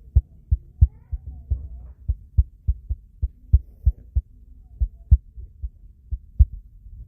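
A series of short, low, dull thumps, roughly three a second at uneven spacing, over a low hum.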